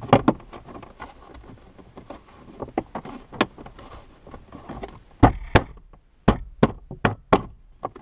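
Hands knocking and pressing the plastic passenger airbag cover down into a 2014 Skoda Fabia's dashboard: irregular sharp knocks on hard plastic, a few early and a denser run in the second half, as the stiff cover resists seating.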